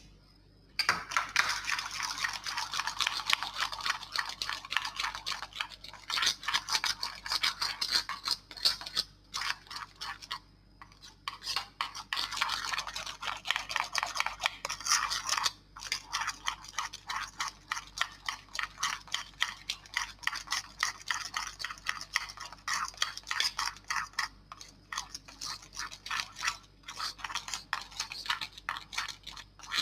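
Slime being squeezed and worked by hand, with a dense run of quick crackling and popping clicks that starts about a second in and goes on with short pauses.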